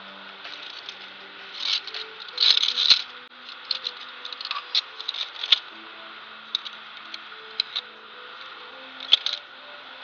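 Via ferrata carabiners clicking and rattling against the steel safety cable, in irregular clusters of sharp metallic clicks, loudest about two to three seconds in. Quiet background music with held notes runs underneath.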